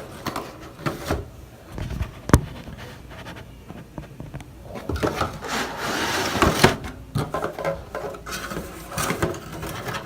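Cardboard clipper box being opened by hand: cardboard rubbing and scraping, a sharp snap about two seconds in, and a longer rustling scrape from about five to seven seconds that ends in a knock.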